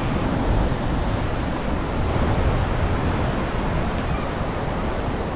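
Ocean surf breaking on a sandy beach, a steady wash of noise, with wind rumbling on the microphone.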